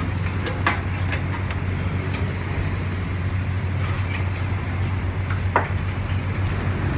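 Steady low rumble of road traffic, with a few light clinks of a metal spoon and china plates as dark soy sauce is spooned over plated chicken; a sharper clink comes near the end.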